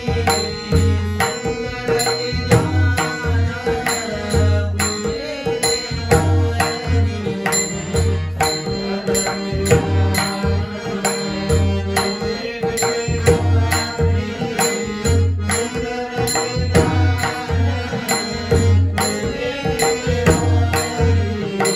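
Marathi bhajan music led by pakhawaj drum, its deep bass strokes falling in a regular rhythm over a steady sustained drone, with sharp high clicks keeping time.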